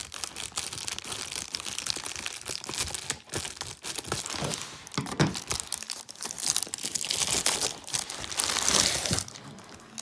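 Amazon Prime mailer bag torn open and its crinkly packaging crumpled and rustled by hand, in a steady run of crackles with louder bursts about halfway and near the end.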